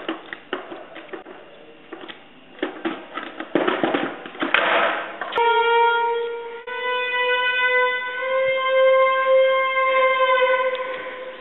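Irregular scraping and clicking for about five seconds, then a fiddle holds one long bowed note that bends slightly upward for about six seconds.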